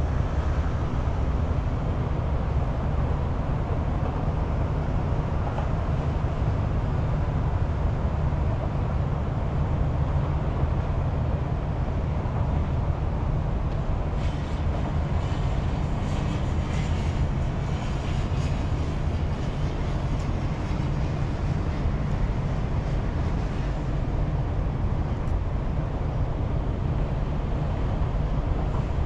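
Steady low outdoor rumble, with a stretch of faint crackling about halfway through.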